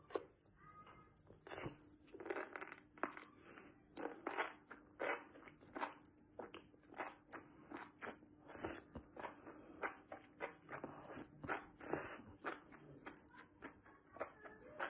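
A person chewing and crunching food close to the microphone, in a steady run of wet, crunchy bites.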